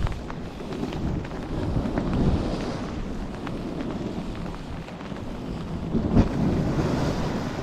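Wind buffeting the microphone over the wash of surf on a rocky shore. A few knocks come through, the loudest about six seconds in.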